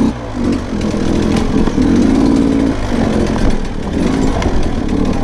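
Sherco 125 dirt bike engine revving up and down as it is ridden over rough trail, with the throttle rolled off briefly near the start and twice more in the second half.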